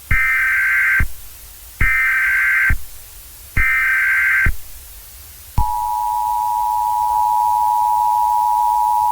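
Emergency Alert System SAME header: three short bursts of digital data tones, each about a second long with brief gaps between them, followed about five and a half seconds in by the EAS two-tone attention signal, a steady dual tone. The sequence marks the start of an emergency alert broadcast.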